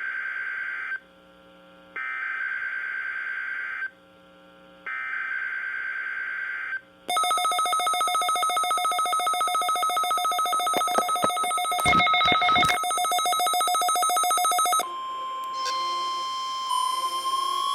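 NOAA Weather Radio SAME header data: three two-second bursts of buzzing digital tones about a second apart, signalling a required weekly test. Then a loud, fast-pulsing alert tone sounds for about eight seconds, followed by a steadier tone whose pitch begins to rise near the end.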